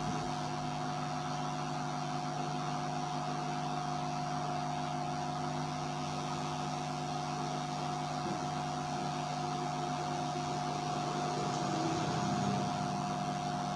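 Steady electrical hum with a constant mid-pitched tone over a low drone and light hiss, swelling slightly near the end.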